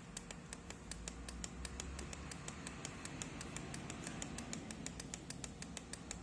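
Faint, even clicking, about six or seven clicks a second, from a kit FM radio-alarm clock while its minute-set button is held down and the alarm time steps forward.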